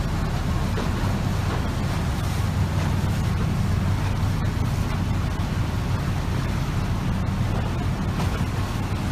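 Strong wind buffeting the microphone, a steady low rumble with no distinct impacts.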